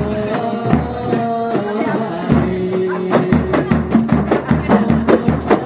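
Kompang ensemble playing: many hand-struck kompang frame drums beating a fast interlocking rhythm over a large bass drum, whose deep beats come about twice a second in the second half. Men's voices sing held notes together over the drums.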